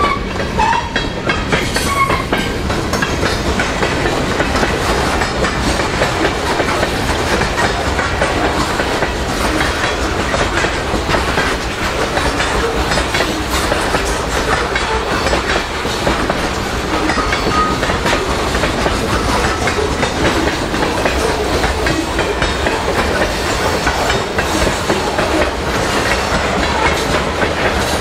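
Freight cars (gondolas, boxcars and covered hoppers) rolling steadily past, the steel wheels running on the rails with a continuous clickety-clack.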